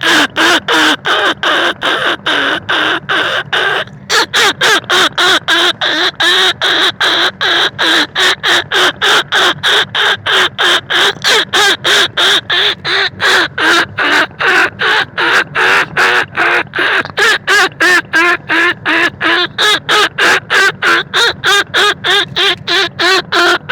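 Rat-calling lure sound meant to draw field rats and bandicoot rats: a rapid string of squeaky, squawking calls about three a second, with one short break about four seconds in.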